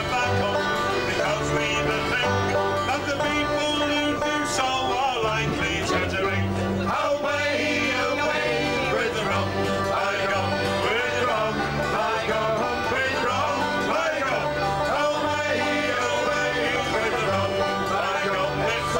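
Folk band playing a lively tune on five-string banjo, acoustic guitar and accordion, with a bass line moving underneath.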